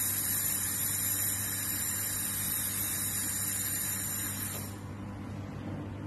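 Handheld fiber laser welding gun firing at low power on a metal plate: a steady hiss that cuts off suddenly about three-quarters of the way through as the beam stops, leaving a steady low hum.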